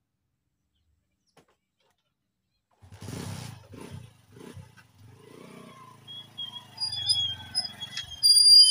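A small commuter motorcycle's engine starts about three seconds in, after near silence, then runs and revs as the bike pulls away. High, thin chirping tones come in near the end.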